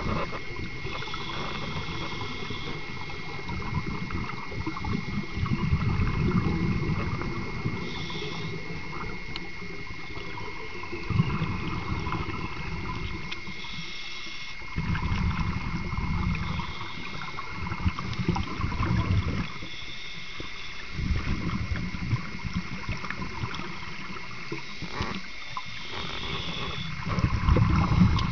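Scuba diver breathing underwater through a regulator: rumbling bursts of exhaled bubbles every few seconds, alternating with short hissing inhalations, over a steady thin high tone.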